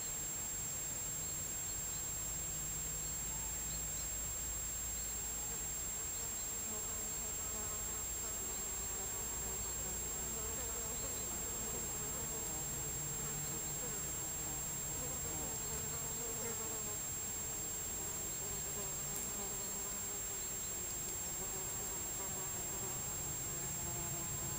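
Flying insects buzzing, their pitch drifting up and down, over a steady faint hum and hiss.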